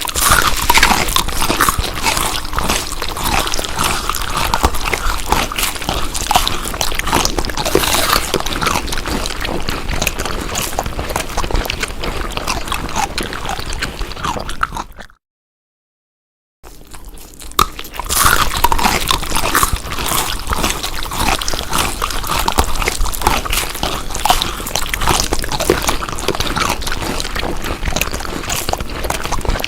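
Close-miked chewing of crunchy food: a dense, continuous crackle of bites and crunches. It cuts out to silence for about a second and a half halfway through, then resumes.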